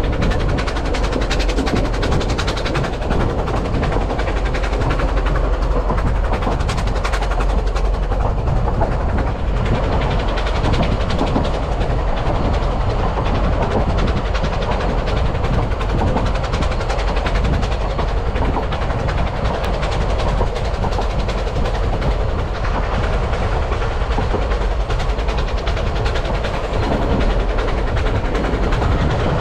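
Narrow-gauge steam train running steadily along the track, heard from an open-sided carriage: a continuous rumble of the wheels on the rails with fast, irregular clicking.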